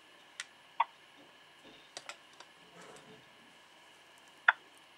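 About six short, sharp clicks, scattered and uneven: two in the first second, a small cluster around two seconds in, and the loudest one near the end, over a faint steady hum.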